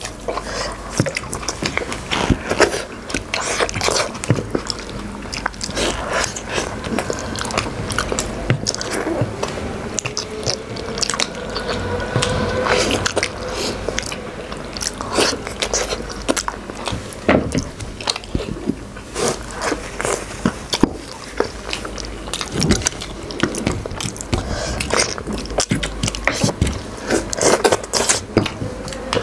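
A person biting and chewing slow-cooked nehari meat and soft bones, with a dense, irregular run of crunching clicks.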